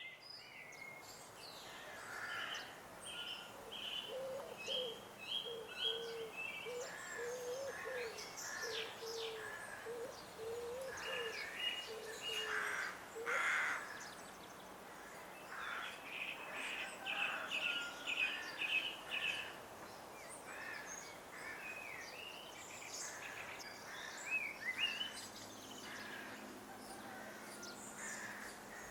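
Several birds singing and chirping at once over a faint steady background hiss, with a lower call repeated over and over through the first half.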